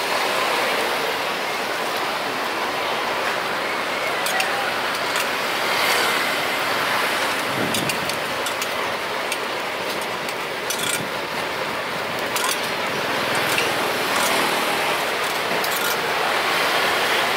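Busy street-market noise: a steady din of mixed voices and traffic, with scattered sharp clinks throughout.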